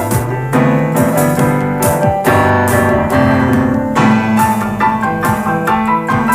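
Instrumental electronic music: sustained electric-piano-like keyboard chords over a regular electronic drum beat whose low drum hits drop quickly in pitch.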